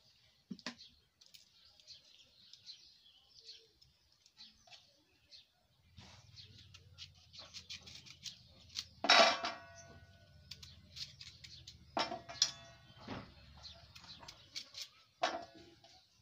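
Small birds chirping throughout. In the second half a knife knocks against a steel plate about four times as fruit is cut on it, the plate ringing briefly after each knock; the loudest knock comes about nine seconds in.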